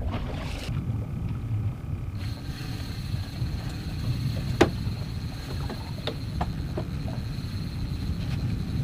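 Wind on the microphone and small waves lapping against the hull of a small skiff, with a few light knocks, one sharper knock about halfway through. A faint, steady, high whine comes in about two seconds in.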